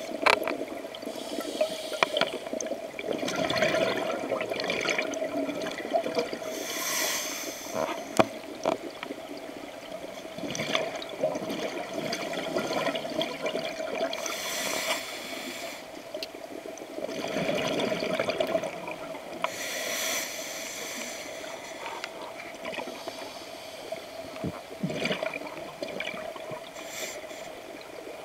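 Scuba diver breathing through a regulator underwater: a gush of exhaust bubbles and hiss comes every few seconds, with a steady hum beneath.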